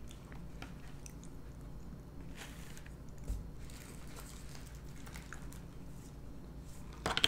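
Faint clicks, taps and scraping of a metal fork against a clear plastic clamshell deli container while chicken salad is scooped out, with a sharper click near the end.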